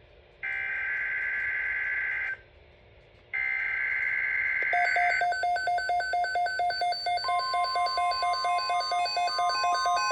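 Emergency Alert System SAME header data bursts: two harsh digital tone bursts of about two seconds each, a second of silence between them. About five seconds in, a rapid repeating electronic beep pattern takes over, and a steady high tone joins it about two seconds later, announcing the alert.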